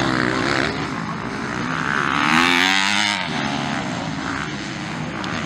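Several motocross bike engines revving as they race, the pitch climbing and falling with the throttle. The revs build to the loudest point a little over two seconds in, then ease off.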